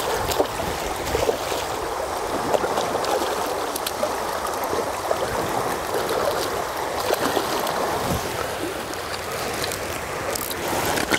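River water flowing steadily past the bank, with small splashes at the surface where a hooked trout is being played.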